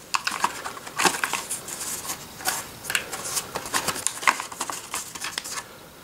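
Screen protector packaging being opened and handled: a run of sharp clicks, taps and crinkling rustles that stops shortly before the end.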